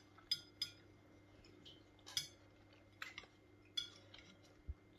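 Cutlery clinking lightly against a plate in a few short, scattered clicks, with one soft low thump near the end.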